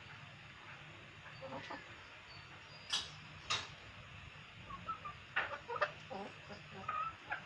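Backyard chickens and roosters clucking in short calls as they feed, most of them in the second half. There are two sharp knocks about three seconds in.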